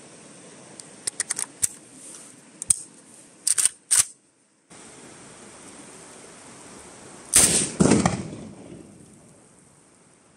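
Sharp metallic clicks of a Kalashnikov TG2 rifle being loaded, its magazine seated and action worked, then a single loud rifle shot about seven seconds in, ringing out for about a second.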